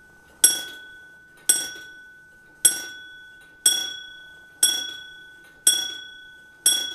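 Morbier Comtoise clock's hammer striking its bell. There are seven bright strokes about a second apart, each ringing on into the next. They are the last seven of the eight strokes for eight o'clock.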